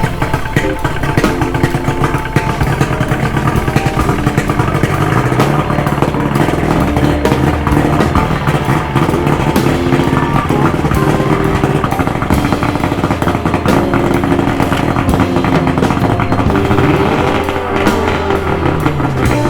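Outboard boat motor running steadily, with background music over it.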